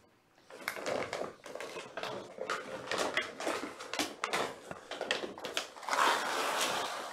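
Irregular rustling with many light clicks and knocks, as of small things being moved or handled; a denser stretch of rustling about six seconds in.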